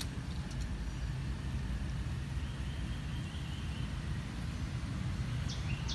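Steady low rumble of outdoor background noise, with a faint high trill about halfway through.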